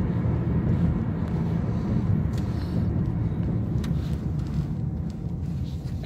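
Car engine and road noise heard inside the cabin of a moving car: a steady low rumble that eases slightly near the end as the car slows for a stop.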